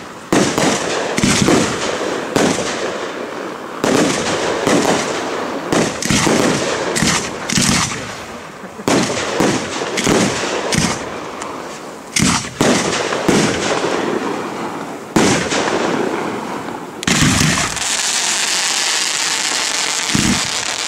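Aerial fireworks display: a rapid, irregular series of shell bursts with bangs and crackle, one after another every second or so. Near the end the bursts give way to a few seconds of steady hissing.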